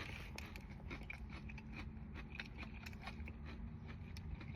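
Close-up chewing of crispy fried chicken: irregular small crunches and mouth clicks, over a steady low hum.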